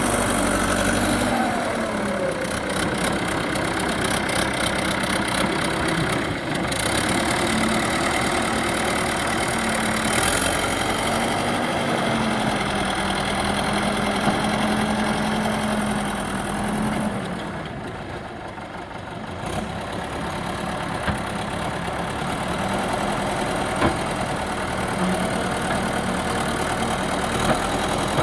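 JCB 3DX Super backhoe loader's diesel engine running steadily, its pitch rising and falling a little as it works. It drops quieter for a couple of seconds about two-thirds through, with a few sharp clicks or knocks now and then.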